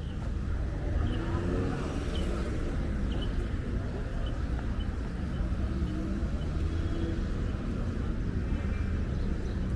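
City street ambience: a steady rumble of passing traffic with indistinct voices of passers-by.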